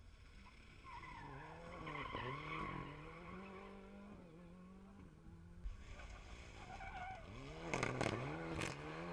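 Rally car engine approaching hard, its pitch rising on each gear and dropping sharply under braking. It is loudest near the end, with a few sharp exhaust cracks as it slows into the hairpin.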